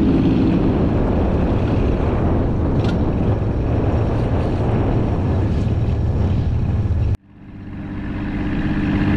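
Boat engine running under way, a steady low hum mixed with wind and water rushing past. The sound cuts off abruptly about seven seconds in and then fades back up.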